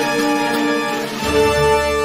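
Background soundtrack music of long held notes, with a deep low note coming in a little over a second in.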